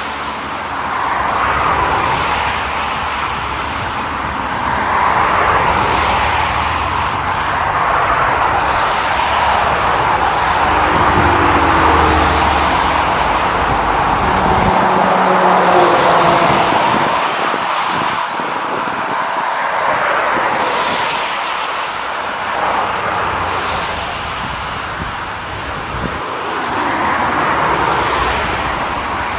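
Jet airliner engines: a loud, continuous rush that swells and eases, with a faint whining tone about a third of the way through.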